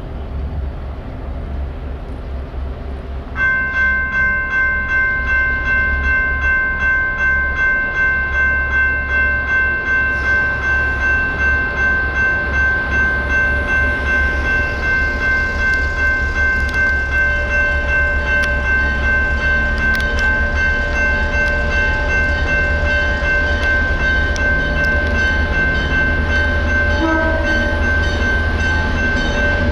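General Signal (GS) Type 2 electronic railroad-crossing bell starting up about three seconds in, then ringing steadily at about two dings a second over a low rumble.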